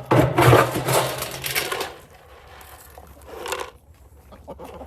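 Dry feed rattling as a container of it is shaken hard for about two seconds, then shaken again briefly near the end.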